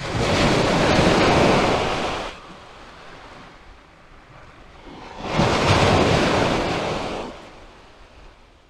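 Waves breaking on a shingle beach, two loud swells of surf about five seconds apart, each lasting about two seconds, with quieter wash between them.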